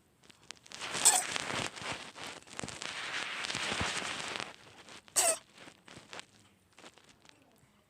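Pet cat sneezing: two sharp sneezes, one about a second in and another about five seconds in, with a few seconds of hissy noise between them.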